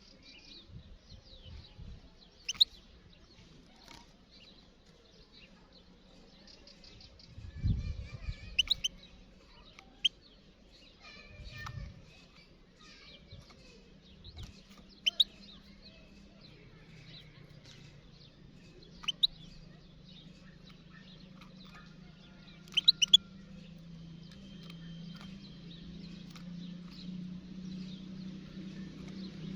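European goldfinches calling and twittering in the wild: sharp, short high notes every few seconds over fainter chirping. A low engine hum builds through the second half.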